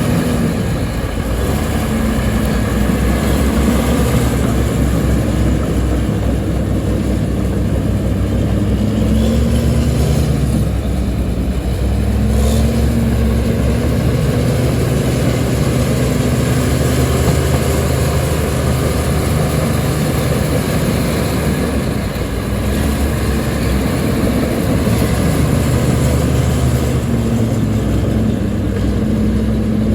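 Heavy earthmoving machine's diesel engine running loudly and continuously, its pitch rising and falling every few seconds.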